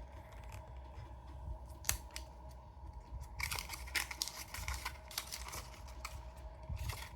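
Faint scratchy rustling and light clicks of earbud packaging and the plastic charging case being handled. There is a lone click about two seconds in, and steadier rustling from about halfway.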